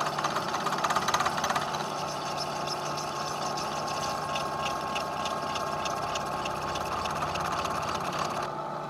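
Lagun milling machine fly-cutting aluminum: a rapid, even chatter of the interrupted cut for the first second or so. Then the cutter runs free with a steady spindle whine and hum. Near the end the spindle is switched off and begins to wind down.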